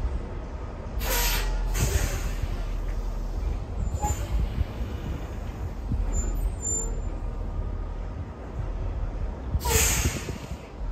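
Semi-truck moving a trailer at low speed, its diesel engine running steadily underneath, with short air-brake hisses about a second in, again a second later, and near the end.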